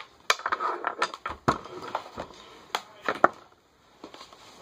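Objects being handled and set down: a string of sharp knocks and taps with some rustling in between, quieter for a moment near the end.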